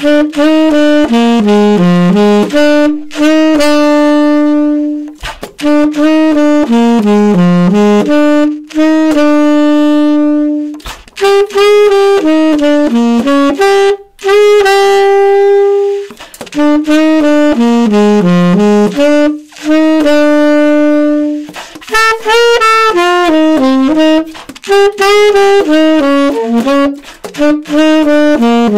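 Saxophone played solo, without accompaniment: a slow blues exercise of quick eighth-note runs and held notes, in short phrases split by brief rests.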